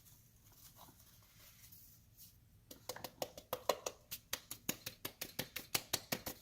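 Electric coffee grinder being shaken, giving a quick run of sharp rattling knocks at about five a second that starts a little before halfway and stops near the end; the motor is not running.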